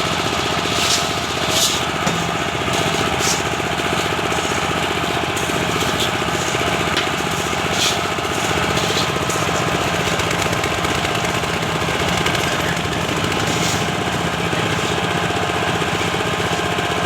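A small engine running steadily with a fast, even chug, with a few sharp metallic clinks in the first few seconds and again about eight seconds in.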